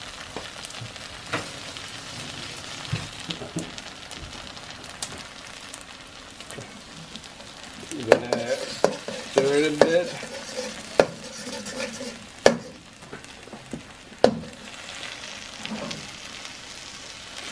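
Eggs frying in hot oil in a steel wok, sizzling steadily, while a metal spatula stirs noodles over them, scraping and clanking sharply against the wok several times in the second half.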